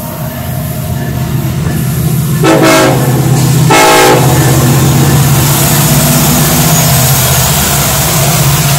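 Union Pacific diesel freight locomotives approaching and passing at speed, their engines rumbling louder as they come close. Two short blasts of the locomotive horn come about two and a half and nearly four seconds in.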